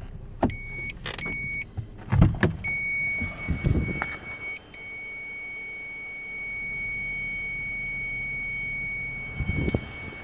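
A license-plate parking sensor's dashboard display buzzer beeping at a high pitch: two short beeps near the start, then a continuous tone from about three seconds in, broken once briefly, that runs until near the end. A continuous tone is the warning that an obstacle is very close behind the car. A few dull thumps sound around two seconds in and near the end.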